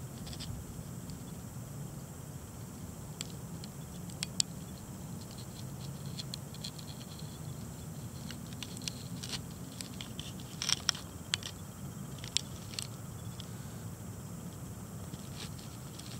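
Scattered light clicks and scratches over a steady low hum, with a short cluster of louder clicks about two-thirds of the way in.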